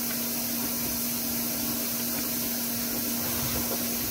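A motor running steadily in the background: a constant low hum under an even hiss, unchanging throughout.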